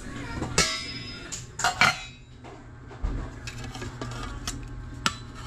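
Metal kitchenware clattering: an aluminium pot lid clanks with a brief metallic ring in the first two seconds, then a metal ladle scrapes and taps against the inside of an aluminium pot while soup is scooped out.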